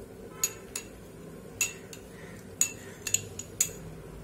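A steel spoon clinking against a small glass bowl as it cuts into a soft gulab jamun: about half a dozen light, sharp clinks at uneven intervals.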